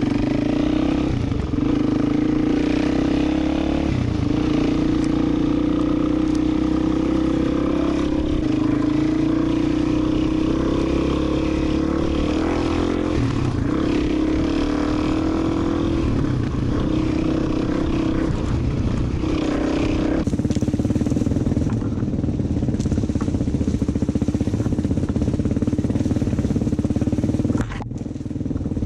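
Dirt bike engine running as it rides along, the revs dropping and climbing again several times.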